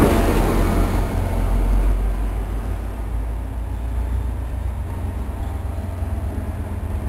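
A passing train's wheels and cars rushing by close at hand, fading over the first couple of seconds. Then a steady low rumble as a push-pull commuter train approaches around a curve, its cab car leading and its F40PH-2CAT diesel pushing at the rear.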